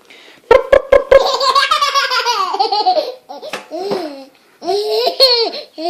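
Four quick sharp pops about half a second in, then a ten-month-old baby laughing in long, high bursts, with short breaks in between.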